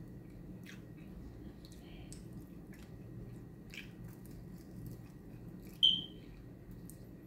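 Someone eating sauced chicken wings: soft chewing, lip smacking and sucking meat off the bones, scattered small clicks. About six seconds in, a short, sharp, high-pitched squeak stands out as the loudest sound.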